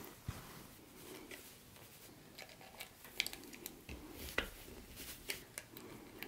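Scattered small clicks and light rustling from hands handling small objects, irregularly spaced.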